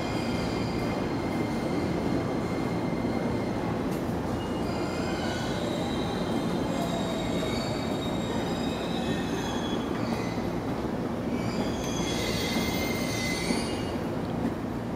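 JR 113 series electric train pulling into a curved platform track, with a steady rumble and high-pitched wheel squeal that comes and goes, from about four seconds in and again near the end.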